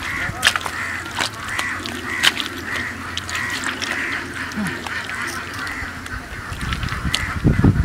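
Wet mud squelching and clicking as an arm digs into a mud hole in a bank, under a run of short repeated animal calls, about two or three a second.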